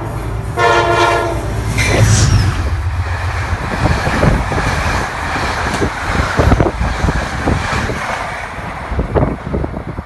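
Metro-North train's horn: the end of one blast, then a second short blast, followed by the train passing close by with a loud rumble and its wheels clacking over the rail joints.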